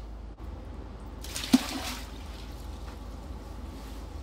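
A large burbot is let go back down the ice-fishing hole, with one water splash about a second and a half in that dies away within half a second.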